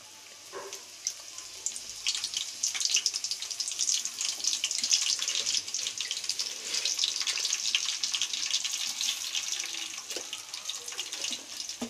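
Dried red chillies and tempering spices frying in hot oil in an iron kadai: a steady sizzling hiss full of fine crackles that swells about two seconds in.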